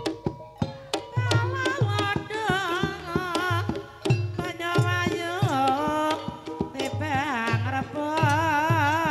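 Javanese gamelan accompaniment for an ebeg trance dance: steady kendang drum strokes under a singer's melody with heavy, wavering vibrato, which comes in about a second in.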